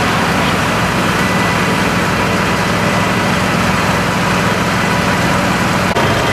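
Fire trucks' engines running steadily: a constant drone of engine and machinery noise with a steady hum, and a short click near the end.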